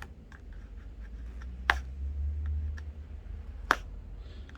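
Two sharp clicks about two seconds apart, with faint ticks between them, as an iSesame pry tool is worked between the iPhone 12's frame and screen to release the display.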